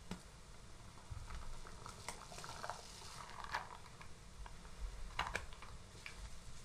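Faint handling noises as a baked sponge cake is turned over by hand on a wooden table: a few light taps and knocks, with a brief rustle a couple of seconds in.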